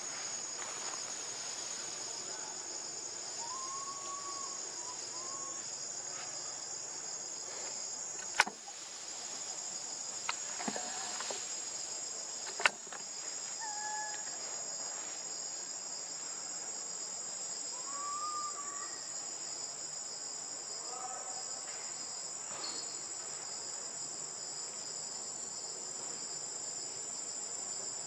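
A steady, high-pitched drone of insects in the surrounding forest, with a few short arched calls scattered over it. Two sharp clicks stand out, about four seconds apart near the middle.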